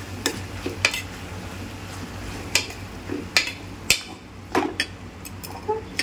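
Metal spoon stirring a thick keema and bitter-gourd mixture in a metal cooking pot, scraping and knocking against the pot at irregular moments, over a steady low hum.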